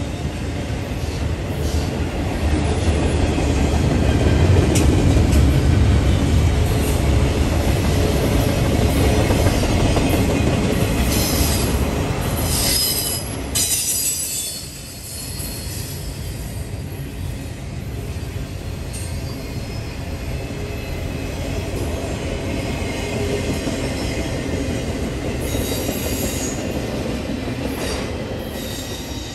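Norfolk Southern intermodal freight cars (double-stack well cars) rolling past: a steady rumble of steel wheels on rail, louder in the first half and easing about halfway through, with high-pitched wheel squeal about twelve seconds in and again near the end.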